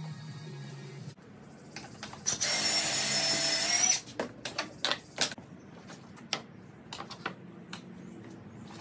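Cordless drill running at a steady speed for about a second and a half, then stopping abruptly. Several short, sharp clicks and knocks follow.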